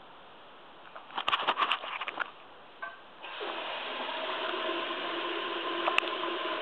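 Clicking and rattling, then a toilet's wall-mounted flush valve letting water rush into the bowl. The water runs steadily for about three seconds with a pitched whine in the pipes, and it is cut off suddenly.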